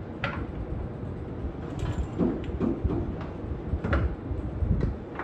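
Irregular metal clunks, knocks and scraping of hands-on work fitting a Turbo 400 automatic transmission under a pickup, about half a dozen sharp knocks over a low rumble.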